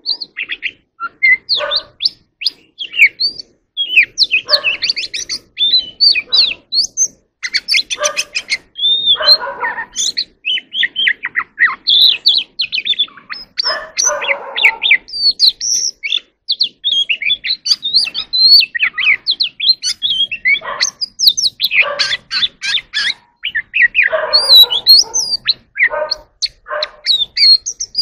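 Oriental magpie-robin singing a long, varied song of quick whistles, chirps and trills, with short pauses and some harsher, lower notes mixed in.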